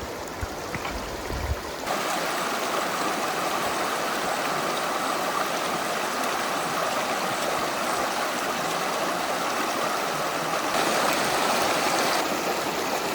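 Mountain creek rushing, a steady wash of water noise. It is quieter over a low rumble at first, comes in fuller about two seconds in, and swells a little near the end.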